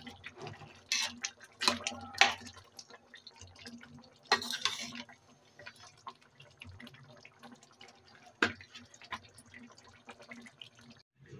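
A metal spoon stirring thick potato-and-eggplant curry in a kadai: wet squelches of the gravy and clicks of the spoon against the pan, busiest in the first five seconds and sparser after, over a steady low hum.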